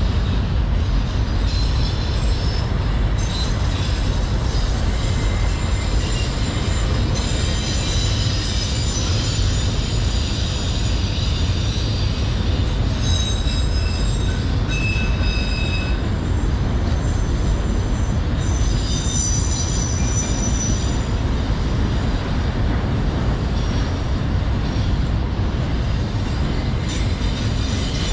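Freight train of autorack cars rolling past: a steady low rumble of wheels on rail, with high-pitched squeals coming and going several times.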